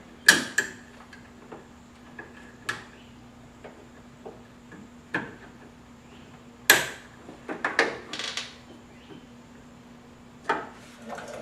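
Scattered clicks, knocks and light rattles of metal and plastic parts being handled and fitted inside a truck door, as a door lock actuator and latch assembly is positioned and plugged in. The knocks come irregularly, with a loudest one about two-thirds of the way through and a quick run of clicks just after it.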